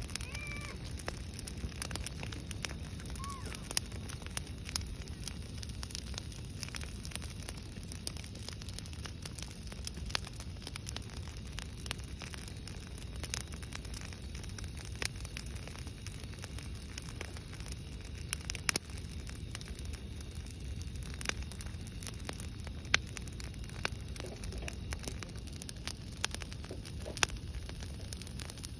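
Brush-pile campfire of dry branches and logs burning, crackling continuously with scattered sharp pops over a steady low rumble.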